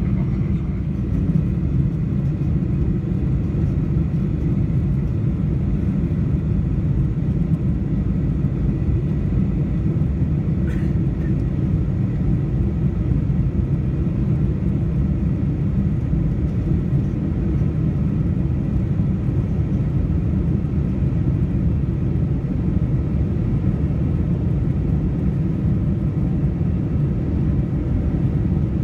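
Steady low drone inside the cabin of a Boeing 747-400 in flight: the four engines and the airflow past the fuselage, unchanging throughout.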